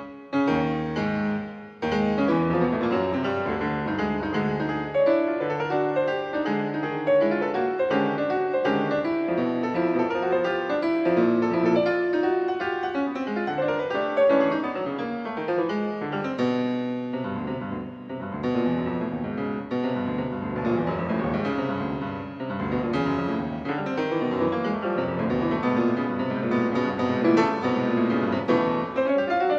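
Solo piano playing a modern classical sonata in dense, continuous chords and runs, broken by two brief stops just after the start.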